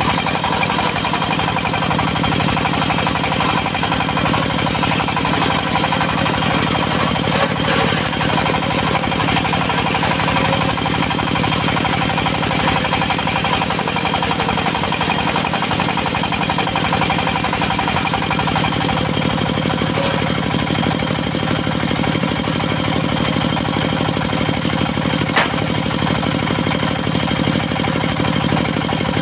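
Diesel engine of a portable circular sawmill running steadily at an even speed, with one sharp click near the end.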